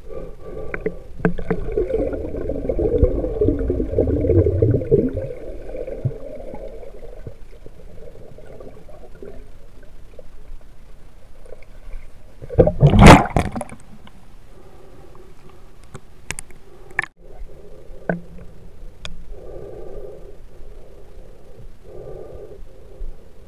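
Water recorded underwater by the camera: churning and gurgling for the first few seconds, a loud rush of bubbles about halfway through, then a few light clicks and knocks.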